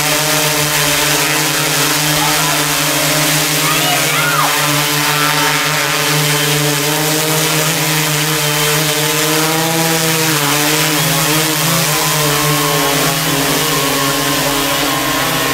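Large 3D-printed quadcopter in flight, its four Emax MT3515 brushless motors spinning 15-inch carbon propellers: a steady, loud droning buzz whose pitch wavers slightly as it manoeuvres and dips briefly about ten seconds in.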